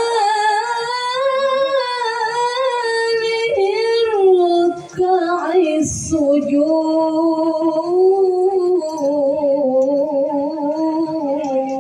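A woman singing sholawat solo into a microphone with no drums: long held notes with wavering, ornamented runs, then after a breath about five seconds in, lower, steadier sustained notes.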